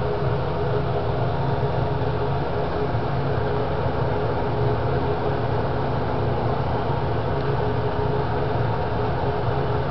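A steady mechanical hum with a hiss over it, unchanging.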